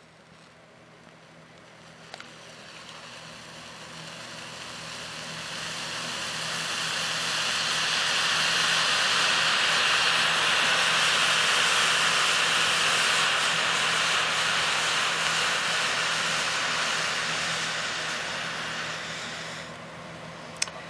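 Wheat-based organic absorbent loaded with potassium nitrate burning in a very energetic self-propagating reaction, the nitrate oxidizer feeding the wheat as fuel: a hissing rush that builds over about six seconds, holds for about ten and dies away near the end. A single click sounds about two seconds in.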